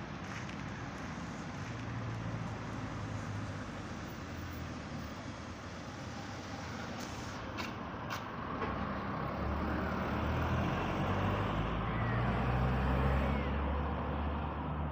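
Street traffic: cars driving past on the road, with one car's engine and tyre rumble growing louder about nine seconds in as it passes close, then easing off.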